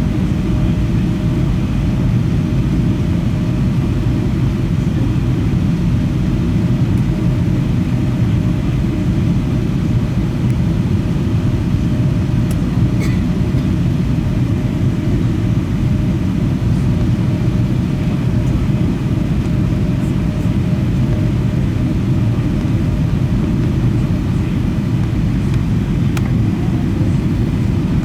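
Steady low rumble of engines and airflow inside the passenger cabin of an Airbus A320 in flight, with a faint steady hum above it.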